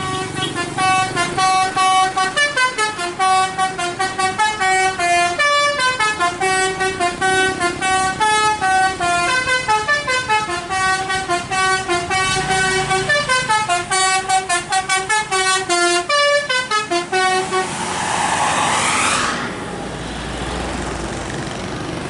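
Bus telolet basuri horn playing a fast, many-note melody of short, quickly changing tones. About eighteen seconds in it stops and a loud rushing noise swells and dies away, leaving steady vehicle noise.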